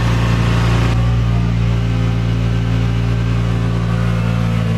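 1995 Mazda Miata's 1.8-litre four-cylinder engine idling steadily, run with the heater on full to bleed air out of a freshly refilled cooling system. A brief hiss sounds over it in the first second.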